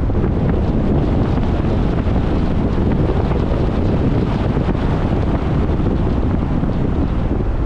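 Steady rumble of a car on the move, tyre and wind noise, even in level throughout.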